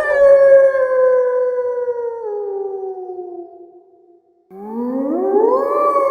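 Werewolf howl sound effect: a wolf-like howl that sweeps up sharply and then slides slowly down in pitch over about four seconds. After a brief pause a second howl begins, rising more gradually and holding its pitch.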